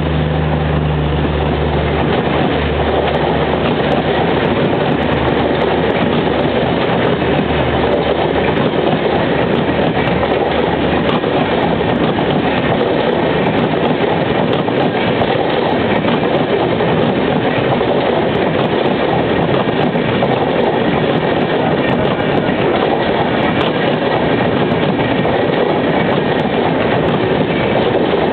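Rajdhani Express coaches passing at close range, with steady wheel-on-rail noise and light clatter over the rail joints. At the start, the train's brake and generator power car goes by with a low diesel-generator hum, which fades out by about ten seconds in.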